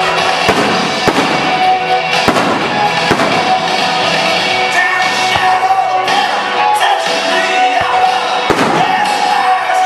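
Aerial firework shells bursting in a series of sharp bangs, with loud music playing steadily underneath.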